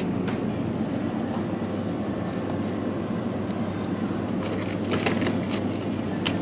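Steady low hum of supermarket refrigeration and ventilation, with a few short clicks and rustles about five seconds in and again near the end.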